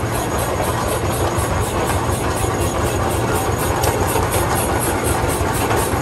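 Russell steam traction engine driving past close by, running with a steady, fast beat of exhaust chuffs and the clatter of its iron-wheeled running gear.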